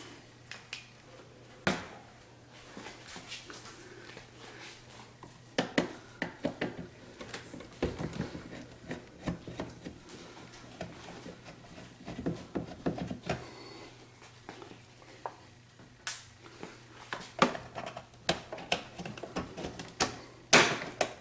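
Irregular clicks, knocks and plastic rattles of hand work inside a refrigerator: a screw being taken out with a screwdriver and a plastic cover in the icemaker compartment being pulled out.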